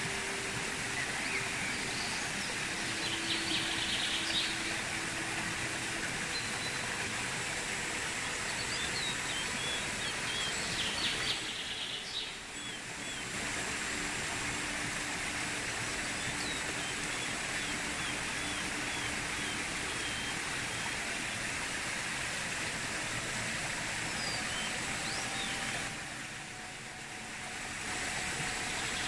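Shallow stream rushing over rocks in a steady wash of water noise, with birds chirping at intervals. The water sound drops away briefly twice.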